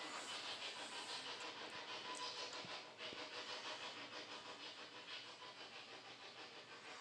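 Faint, steady hiss of room noise, with a few light ticks.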